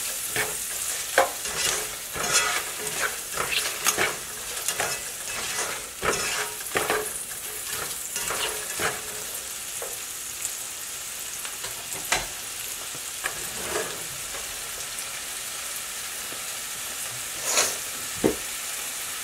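Diced red onions sizzling in butter in a nonstick pan while a plastic slotted spatula scrapes and taps against the pan, stirring them through the first several seconds. Then a steady sizzle as the onions sauté toward translucent, with a couple of knocks near the end.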